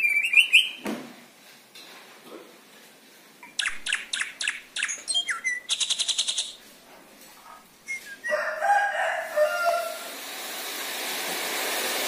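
Caged drongo singing: a short chattering burst, then a run of sharp clicking notes that ends in a fast rattle, then more chattering phrases. A hiss rises near the end.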